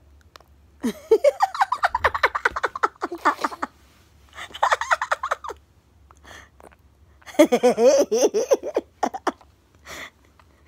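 Baby babbling and squealing in three bursts of quick, choppy vocal sounds, the first about a second in, the next around four and a half seconds and the last around seven and a half seconds.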